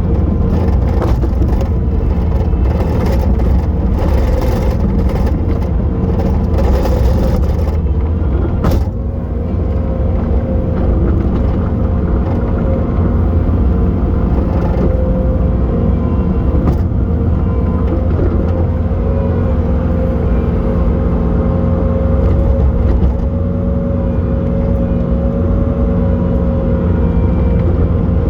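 Bobcat T870 track loader's diesel engine running steadily with a constant high hum, as it digs wet snow. There is dense clattering for the first eight seconds or so, a sharp knock about nine seconds in, and smoother running after that.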